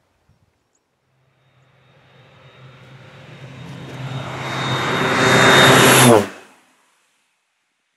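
Air Tractor crop-dusting plane flying in low and passing overhead. Its engine and propeller drone, with a steady high whine, grows louder for several seconds, peaks about six seconds in, then cuts off suddenly.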